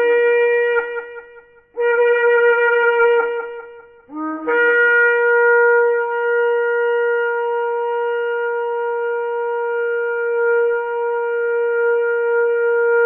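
A shofar being blown: one blast ends about a second in, a short second blast follows, and then comes a long held blast from about four seconds in. Each blast opens on a lower note and jumps up to a steady higher tone.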